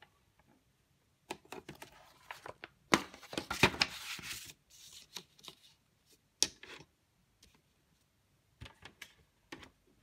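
Sheets of paper rustling as they are swapped on the glass of a Canon flatbed scanner, loudest a few seconds in, mixed with clicks and knocks from handling the scanner's lid. A few more sharp clicks come near the end.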